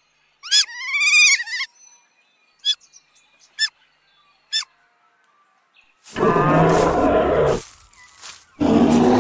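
A few short, high chirping calls, then two loud, long animal roars, the first about six seconds in and the second near the end: a dubbed roar voicing a Saurosuchus, a large Triassic predatory reptile.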